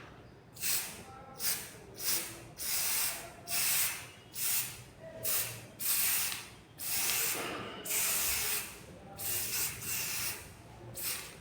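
Aerosol can of dye penetrant spraying in a dozen or so short hissing bursts, with one longer burst about seven seconds in, as the penetrant is applied to a weld for a liquid penetrant test.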